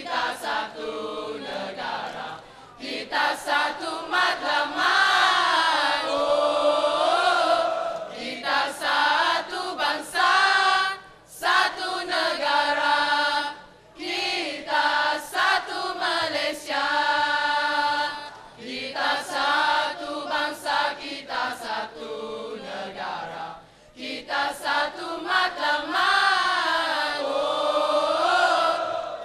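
A mixed choir of young men and women singing a choral song in harmony, in long phrases broken by a few short pauses for breath.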